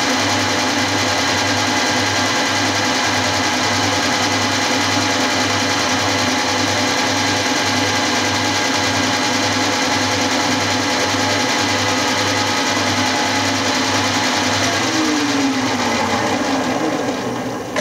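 Milling machine running with a flycutter taking a cut, a regular pulse a little under twice a second as the single cutter strikes the work. Near the end a falling whine as the machine winds down and the sound dies away.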